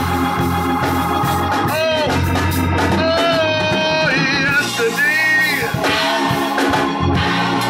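A man singing through a microphone, drawing out long held notes that bend and waver, over organ accompaniment.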